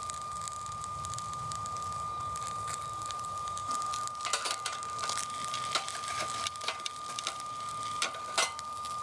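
BioLite CampStove 2's fan running with a steady high whine as it blows into a small wood fire. Scattered crackles and clicks start about four seconds in.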